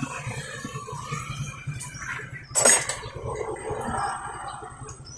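Handling and tool noises from work on a diesel engine's timing belt and tensioner, with one short, loud clatter about two and a half seconds in, over a low steady hum.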